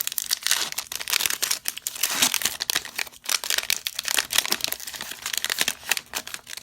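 Plastic wrapper of a trading-card fat pack crinkling as it is torn open and peeled back by hand, a dense run of crackles.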